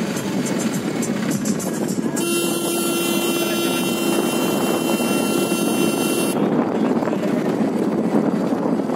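Engine and wind noise of a vehicle moving along a road. A steady horn sounds for about four seconds in the middle, starting and stopping sharply.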